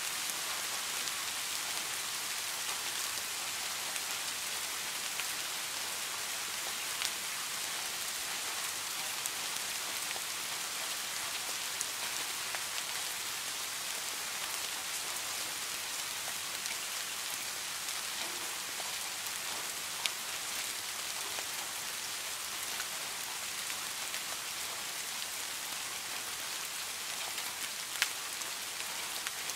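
Steady rain falling, an even hiss with scattered single drops ticking through it; two louder drops stand out, one about twenty seconds in and one near the end.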